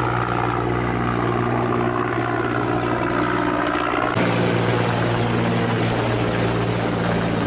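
Helicopter in flight, its rotor and engine making a steady loud drone; the sound changes abruptly about four seconds in.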